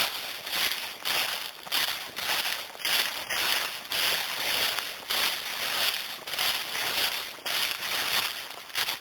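Footsteps crunching and rustling through dry leaves on a forest floor at a steady walking pace, about two steps a second.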